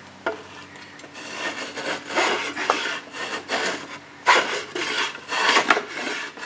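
Hand plane shaving the end of a wooden plank in quick repeated strokes, about two a second, trimming the scarf for a snug fit.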